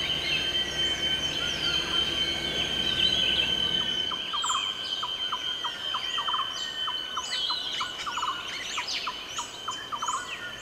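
Tropical rainforest soundscape: many birds calling and chirping over a steady high insect drone. A string of short repeated notes joins in about four seconds in.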